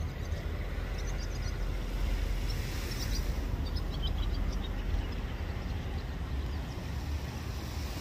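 Wind rumbling on the microphone over a steady outdoor background noise, with a few faint bird chirps between about one and four seconds in.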